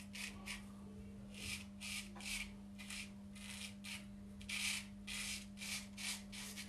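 Emidio D'Astolfo straight razor cutting through two-day stubble under shaving lather: a string of short, crisp scrapes, two or three a second, with a pause of about a second in the middle.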